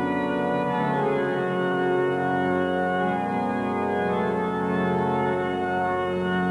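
Organ music: slow, sustained chords held for a second or more at a time, shifting gradually from one chord to the next.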